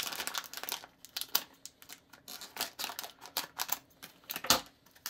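Foil candy pouch being opened and handled: an irregular run of crinkles and small clicks, with two sharper crackles about a second and a half in and near the end.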